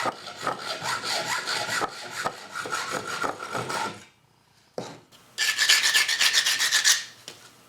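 Hand saw strokes cutting off about 1.25 inches of the spindle's bolt to shorten it. The strokes carry a faint ringing tone and break off briefly about four seconds in, then resume faster and louder.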